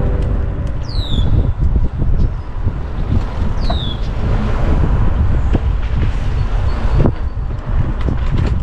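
Wind buffeting the microphone of a moving bicycle rider, a strong uneven low rumble. Two short, high, falling chirps come about a second in and again nearly four seconds in.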